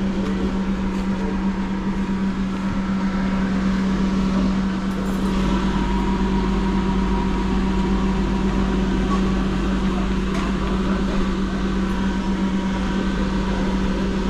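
Steady machine hum, a strong low drone with a fainter higher tone, from running fan or refrigeration equipment, with a few faint taps and rubs as a rubber refrigerator door gasket is pressed into its channel by hand.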